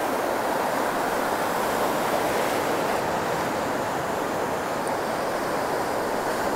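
Ocean surf washing in steadily on a beach: a continuous, even rushing noise with no single wave standing out.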